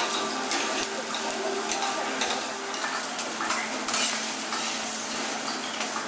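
Food sizzling on a hibachi (teppanyaki) steel griddle, with metal spatulas scraping and clicking on the hot plate as vegetables and fried rice are stirred.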